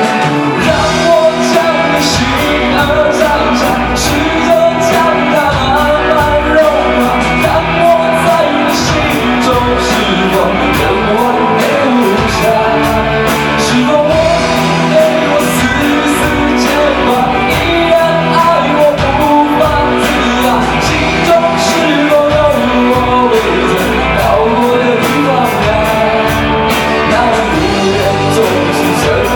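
A rock band playing live, with drums, bass and electric guitar, a lead melody bending over the top and cymbals ticking steadily.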